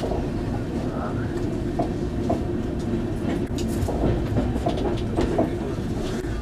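Rajdhani Express passenger coach running along the track, heard from inside the carriage: a steady rumble with a few sharp clicks of the wheels over rail joints.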